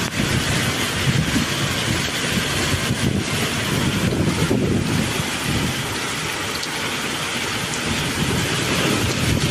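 Heavy downpour: a steady, dense hiss of rain with an uneven low rumble underneath.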